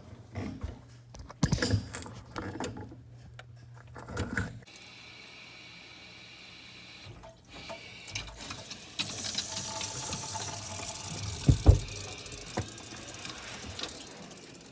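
Knocks and clanks of plumbing work, then water running from a plumbing line with a steady hiss starting about nine seconds in, broken by a couple of thumps.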